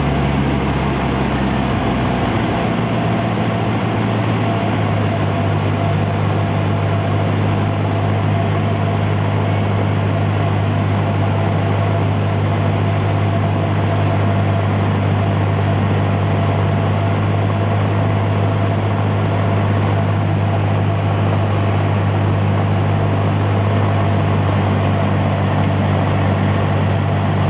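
Cessna 150's four-cylinder Continental O-200 piston engine and propeller running in a steady drone; its low pitch steps up slightly in the first few seconds and then holds.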